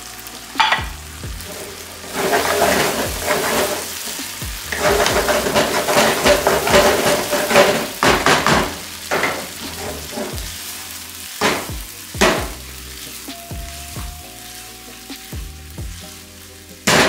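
Paneer, onion and pepper curry sizzling in a nonstick wok as it is stirred and tossed with a wooden spatula, the sizzle loudest in the first half. A few sharp knocks of the spatula against the pan, two of them close together a little past halfway.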